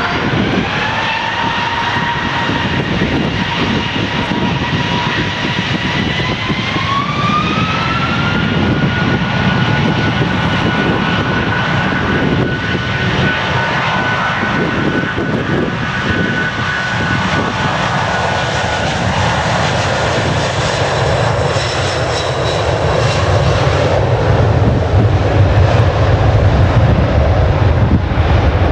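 Boeing 747-436's four Rolls-Royce RB211-524 turbofans spooling up to takeoff thrust: a whine that rises in two steps over the first eight seconds, then holds steady. A deep rumble grows louder near the end as the jet accelerates past on its takeoff roll.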